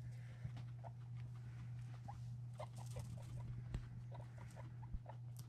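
Guinea pigs giving a run of short, soft squeaks, several a second from about a second in, over a steady low hum.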